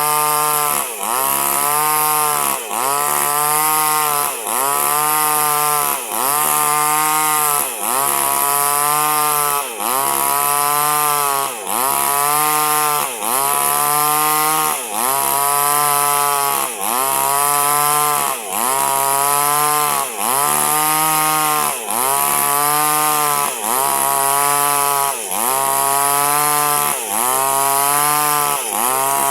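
Small two-stroke chainsaw running at high revs while cutting durian wood. The engine note sags and recovers in a steady rhythm about every second and a half to two seconds as the chain bites into the wood and eases off.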